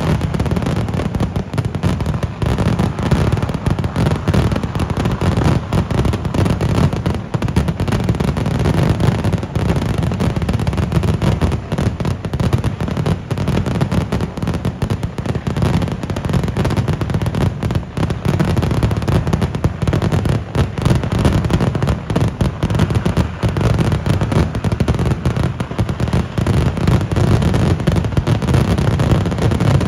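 Kerala temple-festival fireworks (vedikettu) going off in a dense, continuous barrage: countless overlapping bangs and crackles from aerial shells bursting, merging into a heavy rumble with no pause.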